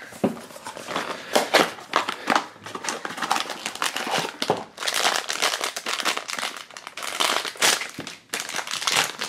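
Foil blind-box bag crinkling in irregular bursts as hands pull it out of its small cardboard box and work it open.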